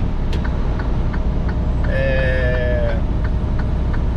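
Steady engine and road rumble heard from inside a truck cab, with a light ticking about four times a second. About two seconds in, a pitched tone sounds for roughly a second, dipping slightly.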